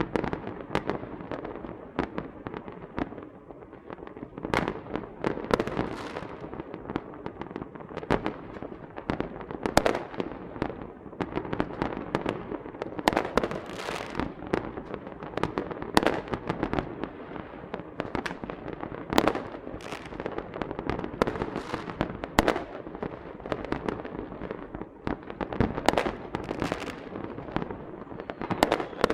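Small fireworks and firecrackers going off continuously: many sharp, irregular pops and bangs, several a second at times, over a steady crackle.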